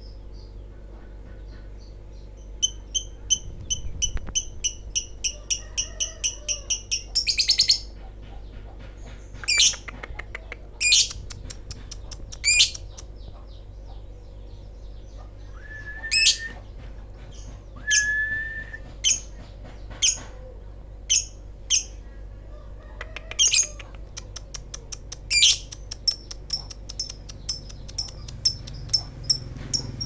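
Fischer's lovebird chirping: a fast run of high chirps about three seconds in that speeds up into a rattle, then loud sharp single chirps every second or two, and another quick run of chirps near the end. A faint steady hum runs underneath.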